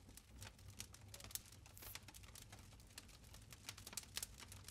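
Faint crackling of a wood campfire: irregular small pops and snaps from the burning wood.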